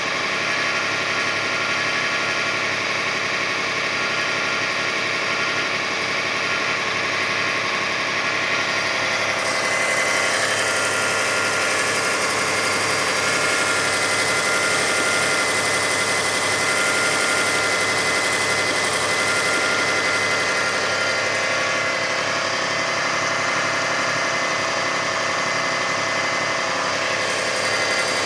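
2005 Kia Sedona 3.5-litre V6 running steadily on high idle as it warms up, accessory belts off, with a steady high-pitched tone that strengthens about ten seconds in. It is the noise that has come on as the engine warms since its timing belt, tensioners, idler and water pump were replaced, and whose cause the owner has not yet found.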